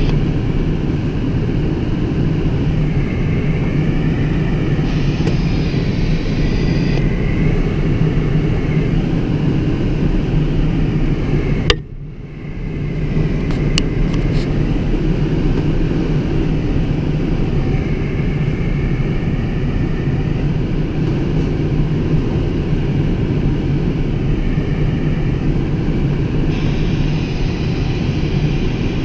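Steady rush of air around a Schleicher Ka 8 glider's cockpit in flight, heard from inside, with a faint wavering tone a few times. About twelve seconds in, a sharp click is followed by a brief dip in the noise.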